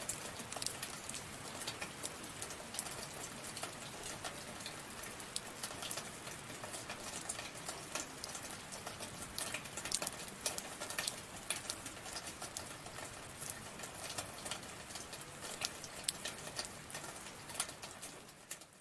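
Steady rain falling, with many close, distinct drops pattering and ticking over the hiss. It fades out near the end.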